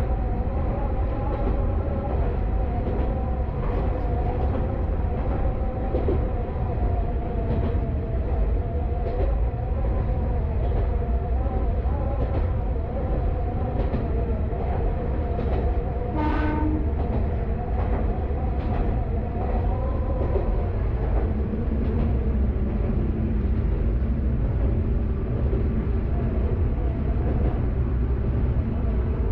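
Diesel engine of a KiHa 532 diesel railcar running steadily under way, with wheels rumbling and clacking irregularly over rail joints. A short horn blast sounds about halfway through.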